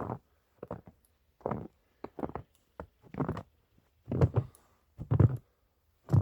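Footsteps crunching through about an inch and a half of fresh, untrodden snow, a steady walking pace of roughly one step a second, the steps growing heavier over the last two seconds.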